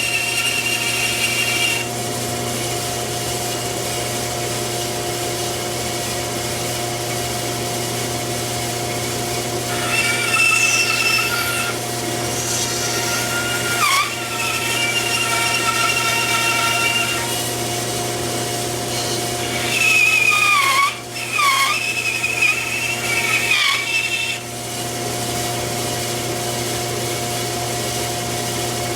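LongMill MK2 CNC router running, its spindle motor humming steadily. Twice in the middle, higher whining tones rise, fall and wobble in pitch for several seconds, the sound of the axis motors moving the cutter.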